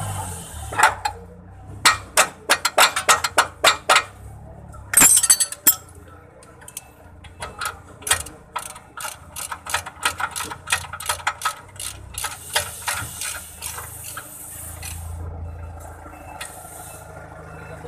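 Hand ratchet wrench clicking in quick runs as it is swung back and forth on the nut of a truck's upper control arm, with a louder metallic clatter about five seconds in.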